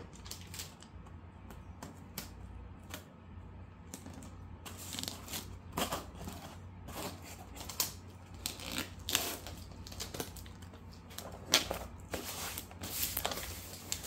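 Cardboard shipping box being packed and closed: crinkling and rustling of packing material, with scattered clicks and scrapes as the flaps are handled and folded shut.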